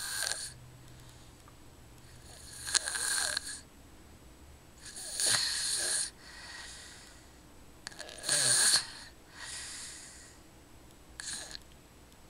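A sleeper snoring in hissing, wheezy breaths, about one every three seconds, some followed by a softer breath.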